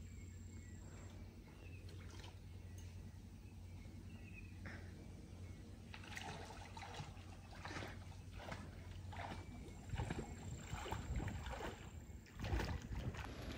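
Faint outdoor ambience of water sloshing and splashing over a low steady hum. The splashing grows busier from about halfway through, and a thin high tone comes in at the start and again near the end.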